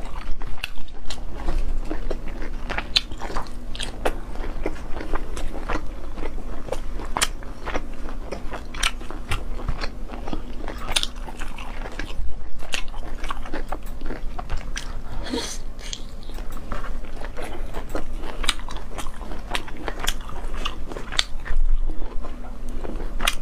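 A person eating close to the microphone: a steady run of crisp, crunching bites and chewing, with a faint steady hum underneath.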